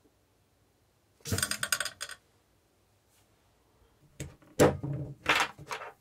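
Small hard plastic clicks and rattling as a Lego Power Functions battery box and its stud-type cable connector are handled and unplugged. A dense clatter lasts about a second, then a few sharper clicks and scrapes follow near the end.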